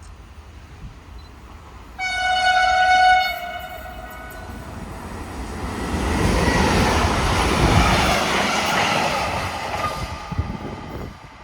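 A train sounds its horn once, a single steady note of about a second, then passes by with a rushing rumble of wheels on rail that swells and fades away.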